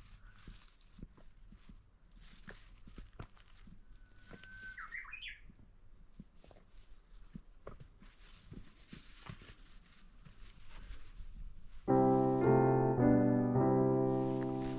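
Quiet forest with scattered faint clicks and one short bird call, a few notes rising in pitch, about five seconds in. About twelve seconds in, piano music starts suddenly and is the loudest sound.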